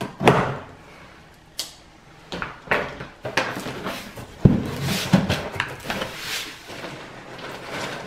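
Large cardboard shipping box being opened by hand: scissors slitting the packing tape, then the flaps pulled open, a run of scrapes and rustles with a sharp knock about halfway through.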